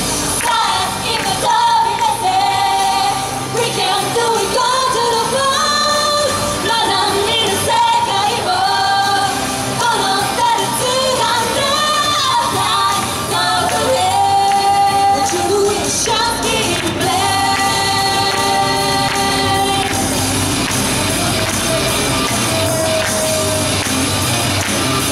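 Women's pop vocal group singing live into handheld microphones over pop music. The singing thins out in the last few seconds while the music carries on.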